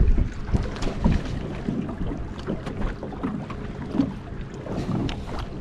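Wind buffeting the microphone over water lapping against a small aluminum boat's hull, with a few light knocks and slaps.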